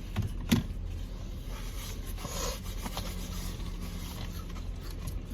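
Takeout food packaging being handled: a sharp click about half a second in, then faint scraping and rustling, over a steady low hum.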